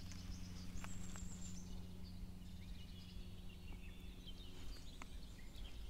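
Quiet riverside ambience: faint, short bird chirps over a steady low hum, with a few light clicks as fly line is handled.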